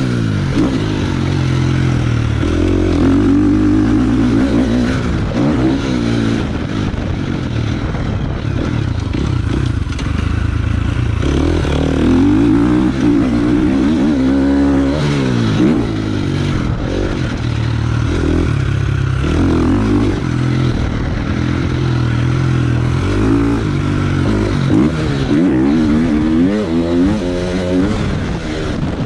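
Dirt bike engine heard from the rider's chest, revving up and falling back again and again as the bike accelerates and shuts off through the corners, over a steady rush of wind and track noise.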